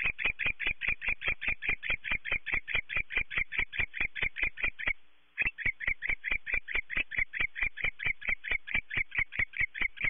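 A rapid, even train of clicking chirps from an animal, about five a second, breaking off briefly about halfway through.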